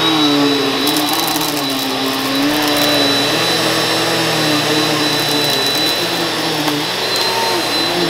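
Eureka NEU182A PowerSpeed bagless upright vacuum cleaner running loud on low-pile carpet, with a steady high whine over the motor's rush of air; its lower hum wavers a little in pitch.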